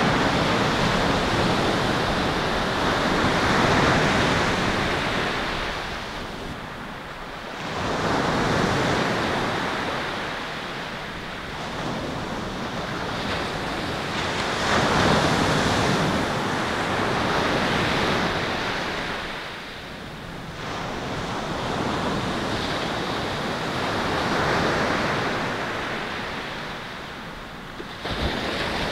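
Ocean surf breaking and washing up a pebble beach, each wave's rush swelling and fading every few seconds.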